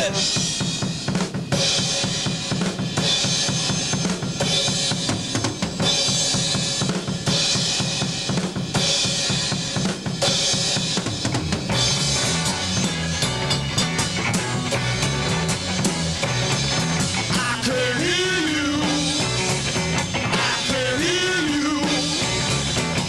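Rock band playing an instrumental passage live: a driving drum-kit beat with snare and cymbals, with a bass line coming in about halfway and a few sliding guitar notes near the end.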